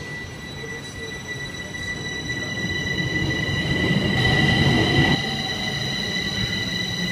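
Metro train running alongside the platform: a low rumble that builds for about five seconds and then drops, under a steady high-pitched whine in several tones.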